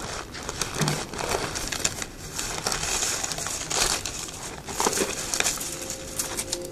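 A ferret burrowing in a cereal box: the plastic liner bag crinkles and the dry cereal flakes crunch and rustle in irregular scrabbles as it digs in.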